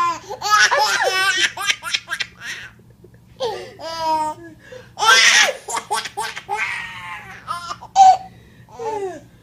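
Baby laughing hard in repeated fits of high-pitched, breathy belly laughs and squeals, with short pauses between the bursts.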